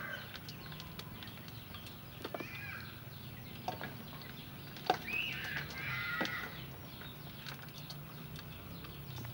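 Wooden spoon and gloved hand tossing salad in a stainless steel bowl: scattered light clicks and scrapes. Chickens call a few times in the background.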